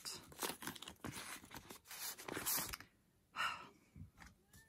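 Soft handling and rustling of photo cards and packaging, with a breathy sigh about three and a half seconds in.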